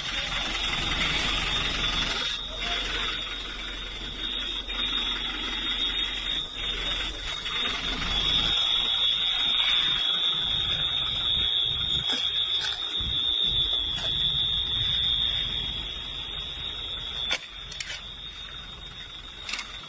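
A steady, high-pitched electronic alarm tone sounding without a break, over background noise, with a few short sharp clicks in the second half.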